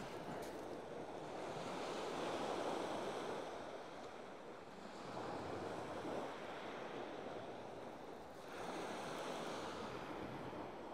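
Small waves breaking and washing up a shingle beach, the surf swelling and easing every few seconds.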